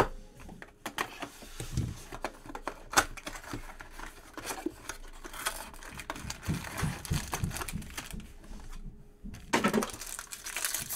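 A cardboard trading-card box and pack wrapper being opened by hand: papery tearing, crinkling and rustling, with many light clicks as the cards are handled. The rustling and tearing grow denser near the end.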